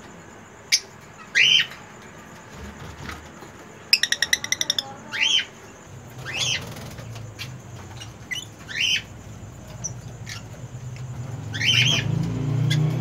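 Lovebirds calling with short, shrill chirps every second or two, with a rapid chattering run about four seconds in, and a few sharp clicks. A low rumble builds near the end.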